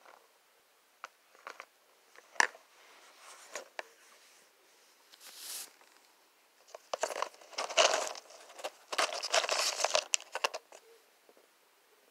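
A spoon clicks a few times in a jar of dry kudzu starch chunks. Then comes a dense run of crunching and crackling from chewing the chunks, loudest from about seven to eleven seconds in.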